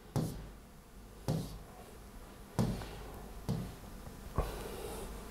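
Five short knocks, roughly a second apart, over a low hum: handling noise.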